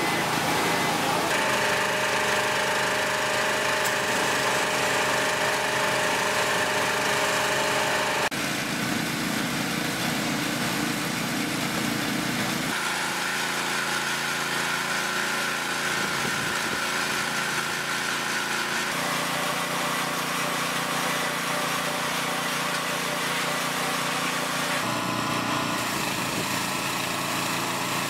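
Small petrol engine of a pressure washer running steadily, its tone changing abruptly several times.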